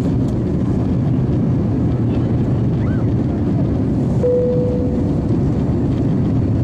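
Steady low rush of cabin noise inside an Airbus A350-900 in flight, the sound of its engines and the airflow past the fuselage. A brief soft tone sounds about four seconds in and fades within a second.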